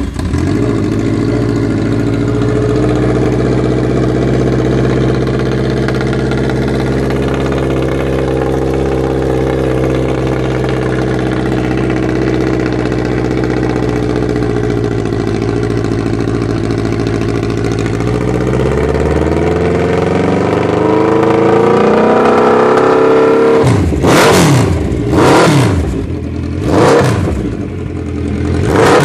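Suzuki GSX1400's inline-four running through a bespoke stainless steel shotgun-style exhaust: it idles steadily just after starting, the revs climb slowly about eighteen seconds in, then several quick throttle blips rise and fall near the end.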